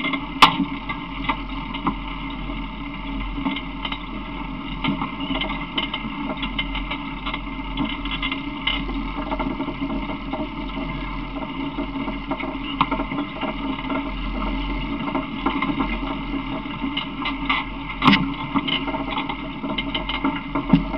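Steady rolling rumble and rattle of an open vehicle under way, with wind on the microphone, and a couple of sharp knocks, one about half a second in and one near the end.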